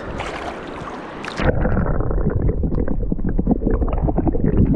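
Hiss of moving water, then about a second and a half in an abrupt change to a louder, muffled low rumble with many small knocks, like water and wind buffeting a microphone close up.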